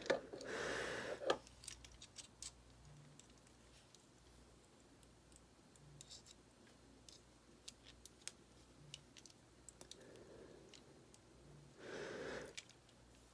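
Faint metallic clicks and scrapes of a pin being worked into a Ruger Mark IV pistol's frame, scattered and irregular as it is lined up. There are brief louder rubbing sounds from handling just after the start and near the end.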